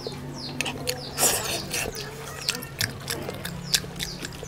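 Close-up wet eating sounds: lip-smacking chewing and sticky, squelching clicks as oily fingers tear at roasted goat meat. The clicks come irregularly throughout.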